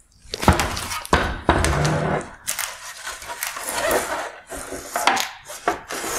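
Plastic headlight lens and housing being handled on a wooden workbench: several sharp knocks early on, then irregular rustling and scraping of hard plastic with small clicks.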